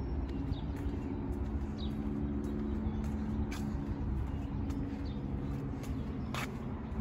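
Steady low hum of motor traffic, with a few faint bird chirps and several light clicks.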